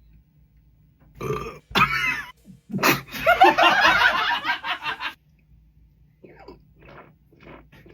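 A man imitating a toad's croak with his mouth: a wet, gurgling, burp-like croak made with saliva, in two short bursts and then one longer rattling croak. Fainter short sounds follow near the end.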